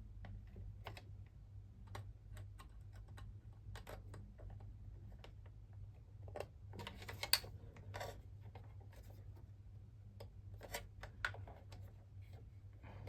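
Scattered small clicks and scrapes of wire connectors and plastic parts being handled while motor leads are pushed onto their terminals in a Numatic Charles vacuum cleaner, with one sharper click about seven seconds in.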